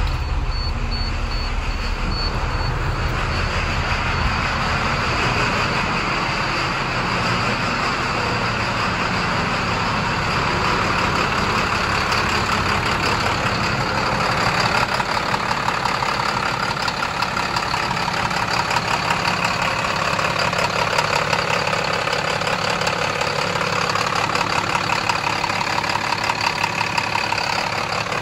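2012 IC RE school bus's MaxxForce DT inline-six diesel idling steadily just after starting, heard first from the driver's seat and then up close at the engine compartment.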